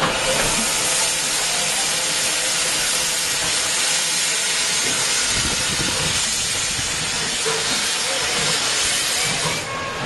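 Steam hissing loudly and steadily from a small Andrew Barclay industrial tank locomotive, blowing out low around its cylinders; the hiss cuts off suddenly near the end.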